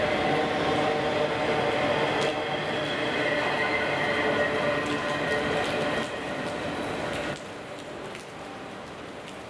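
Autorack cars of a freight train rolling past, wheels running on the rails; the sound steps down about six seconds in and cuts off sharply as the last car clears, leaving steady rain.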